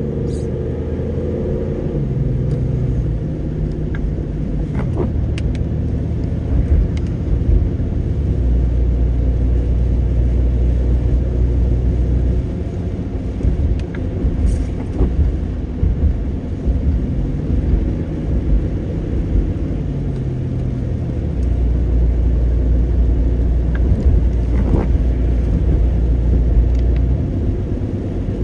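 Car driving uphill, heard from inside the cabin: a steady low engine and road rumble whose engine note shifts up and down a few times.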